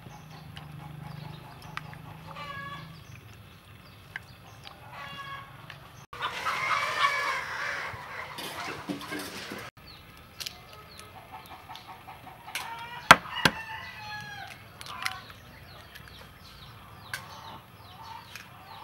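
Domestic chickens clucking around the yard, with a rooster crowing about six seconds in. Several sharp clicks of a metal spoon against a ceramic bowl are heard, the loudest a little after halfway.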